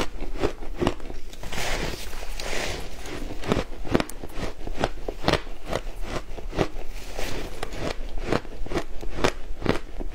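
Shaved ice being bitten and chewed: a steady run of sharp crunches, a few each second.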